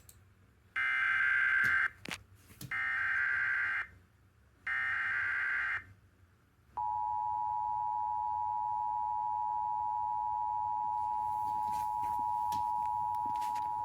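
Emergency Alert System SAME header: three one-second bursts of buzzy digital data tones with short gaps between them. About seven seconds in, the steady two-tone EAS attention signal begins, marking the start of a new emergency alert.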